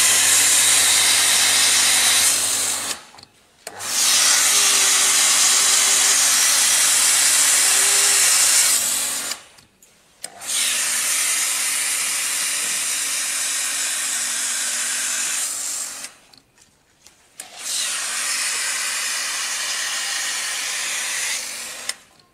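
Water spraying hard from a pump-fed spray gun, a loud steady hiss over a low pump hum, in four long spells. Three times the spray and hum cut off together for about a second before starting again.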